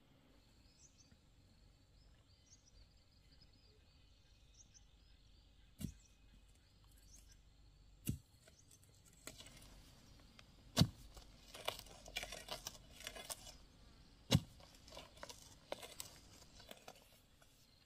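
A hoe chopping into garden soil: four loud strikes a few seconds apart, with soil scraping and clods crumbling between them. Before the strikes begin, faint bird chirps.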